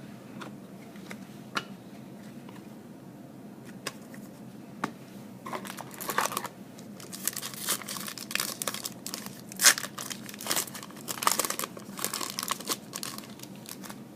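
A few light clicks of cards being handled, then from about five seconds in a foil trading-card pack wrapper crinkling and tearing as it is ripped open.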